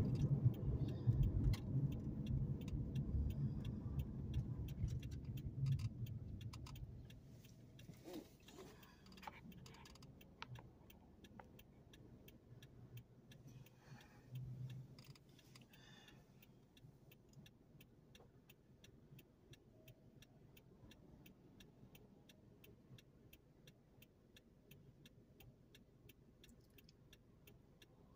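Inside a car: road and engine rumble while rolling, dying away about seven seconds in as the car comes to a stop, with a brief swell of passing traffic near the middle. A turn-signal indicator ticks steadily throughout.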